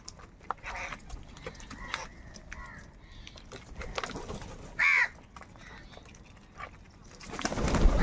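A flock of house crows feeding on the ground: a few scattered caws, one loud harsh caw about five seconds in, and light pecking clicks. Near the end comes a rush of close wingbeats as several crows take off.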